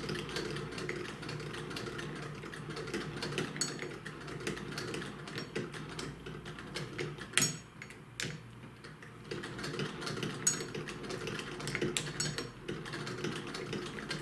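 A 1910 Singer hand-crank sewing machine stitching, with a fast, continuous run of mechanism and needle clicks. About seven seconds in it gives a sharp clack and goes quieter, then picks up again a couple of seconds later.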